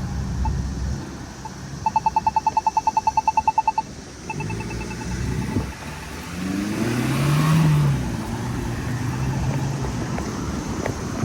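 Polara iNS pedestrian push button sounding its rapid walk-interval beeping, about ten beeps a second for two seconds, then again more faintly for about a second. After that a vehicle passes on the road, loudest about three quarters of the way through, over steady traffic noise.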